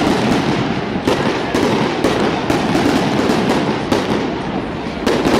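Fireworks display going off: a continuous crackling haze with sharp bangs every second or so.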